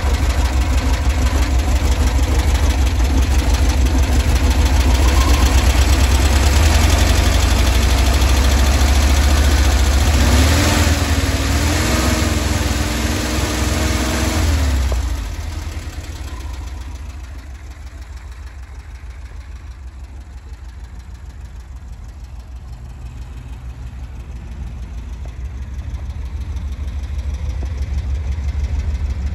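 Classic VW Bus's air-cooled flat-four engine running, heard close up at the open engine bay. About ten seconds in, the revs rise and hold for a few seconds, then fall back to idle. The idle is fainter for the rest, slowly growing louder near the end.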